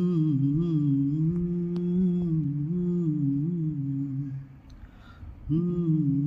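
A man humming a slow, wavering melody without words, in two phrases with a short break about four and a half seconds in.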